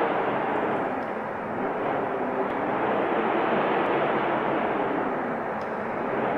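Wind noise: a steady rushing hiss that swells and eases slightly.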